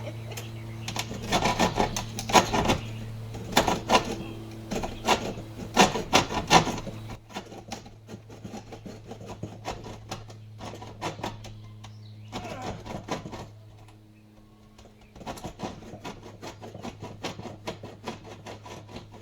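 Bow saw cutting through a wooden 2x4 stud in repeated back-and-forth strokes. The strokes are loudest for the first several seconds, then lighter, with a brief pause about two-thirds of the way through. A steady low hum runs underneath.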